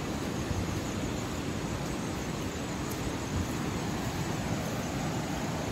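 Steady rushing noise of flowing river water, even and unbroken.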